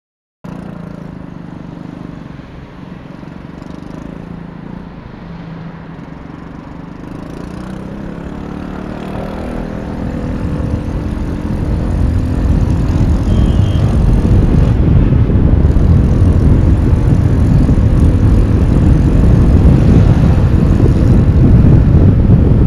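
SYM scooter's engine running as it pulls away and picks up speed in traffic, with wind rushing over the microphone that grows much louder as speed rises, about halfway through.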